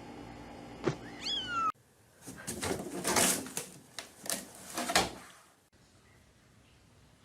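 A cat gives a short meow that falls in pitch, about a second and a half in, over a steady hum. After an abrupt cut comes a run of about five loud, hissy, noisy bursts, the loudest part.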